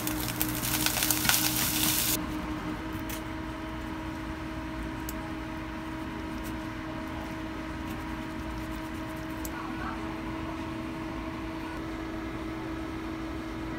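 Fried rice and an egg sizzling in frying pans, stopping suddenly about two seconds in. After that a steady low hum with a few faint clicks.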